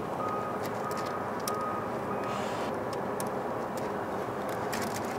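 Steady city traffic noise, with an electronic beeper sounding about four short beeps, a little over half a second apart, that stop about two seconds in. A few sharp clicks are scattered through it.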